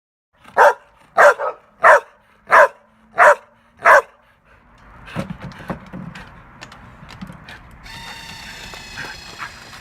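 A dog barking six times in an even rhythm, about one and a half barks a second. After that come quieter mixed sounds, with a high, steady tone near the end.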